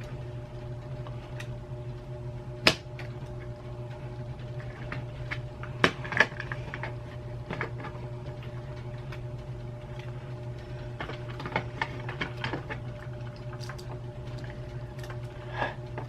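Scattered small sharp clicks and taps from handling a computer mouse under repair, over a steady low hum. The loudest clicks come about three seconds in and twice around six seconds in.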